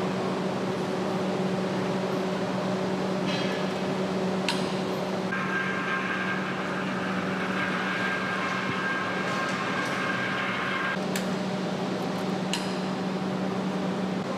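Steady machinery hum at a constant pitch, with a few sharp clicks. A higher steady whine joins in about five seconds in and stops about eleven seconds in.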